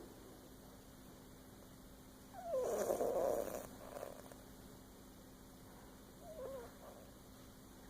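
A sleeping cat snoring: one loud snoring breath about two and a half seconds in, with a squeaky note falling in pitch, and a softer squeaky one near the end.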